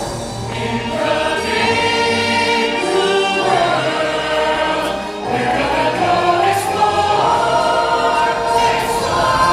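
A stage-musical ensemble singing together, choir-like, over orchestral backing music.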